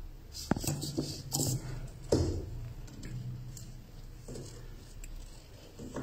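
Fine jewellery wire scraping and ticking as it is pulled and wrapped by hand around heavier wire. There are a couple of sharper knocks about half a second and two seconds in, followed by quieter scattered ticks.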